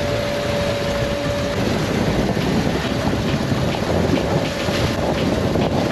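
A motorboat runs across choppy lake water, with wind buffeting the microphone. A steady engine whine runs for the first second and a half, then gives way to rushing water and small splashes against the hull.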